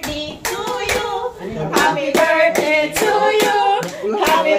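People singing or chanting together, with rhythmic hand clapping at about two claps a second.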